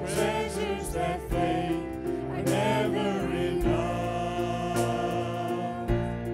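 Worship team of several singers singing together in harmony through microphones, with instrumental backing; the voices hold a long sustained chord in the second half.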